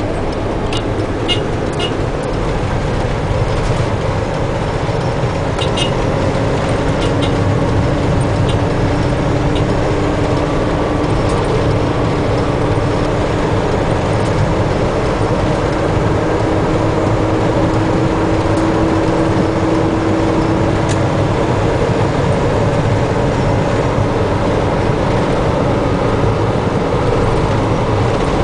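Steady engine and road noise inside the cab of a moving motor vehicle on a paved road. A few light clicks and rattles come about a second in and again around six seconds in.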